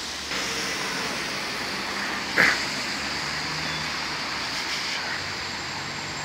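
Street traffic noise, a steady hiss and hum, with one short, sharp, loud sound about two and a half seconds in.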